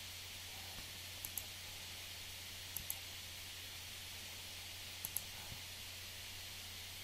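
Computer mouse clicks: three pairs of quick, sharp clicks a second or two apart, over a steady low hum and hiss.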